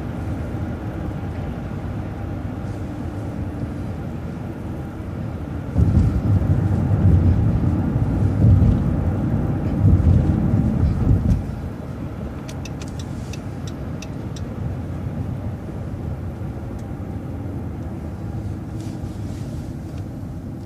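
Bus engine and road noise while driving, steady except for a louder low rumble lasting about six seconds in the middle.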